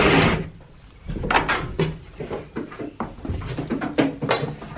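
Wooden barn door pushed open with a scrape at the start, followed by irregular knocks and taps of goats' hooves on the wooden doorway and boards as they step through.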